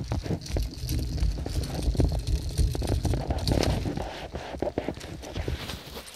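Handling noise from a covered recording phone: irregular rubbing, knocks and low rumbling thumps against the microphone.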